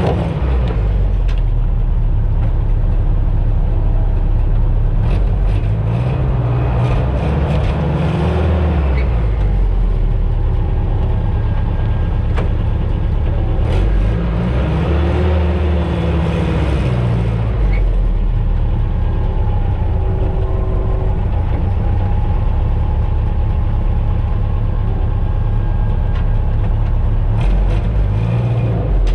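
Willys CJ-2A Jeep's engine running at low speed as the Jeep creeps its soft, low-pressure tires over a wooden board. The engine note rises and falls twice as the tires climb and come off the obstacle.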